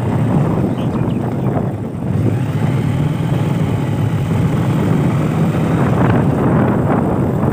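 Motorbike engine running at steady riding speed, with wind buffeting the microphone.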